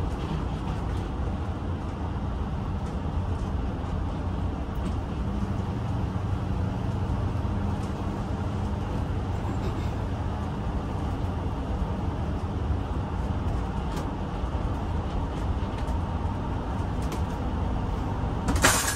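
Cab noise of a Ford-chassis bus conversion under way: a steady low engine and road rumble. Near the end a short, sharp knock rises above it.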